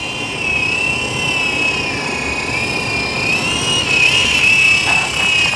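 Toy RC helicopter's small electric rotor motor running with a high whine, its pitch wavering up and down as the throttle changes, over a steady whir of the rotor blades.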